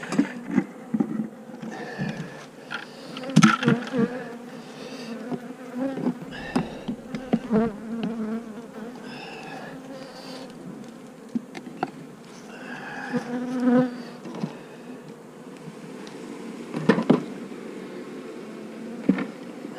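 Honeybees buzzing around an opened hive, a steady drone, with scattered short knocks and clatter; the sharpest knocks come about three and a half seconds in and again near seventeen seconds.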